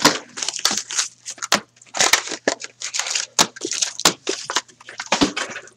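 Plastic shrink-wrap being torn and crumpled off a hockey card box as the box is opened, a dense run of crinkling crackles and sharp clicks.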